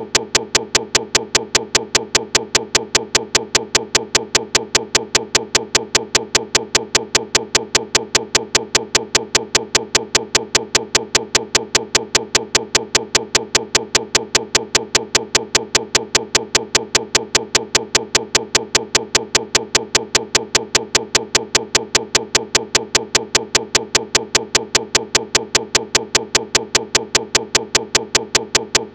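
A rapid, perfectly even clicking at about five clicks a second over a steady unchanging hum, repeating without variation: a stuck, looping digital glitch in the recording rather than any mechanical sound.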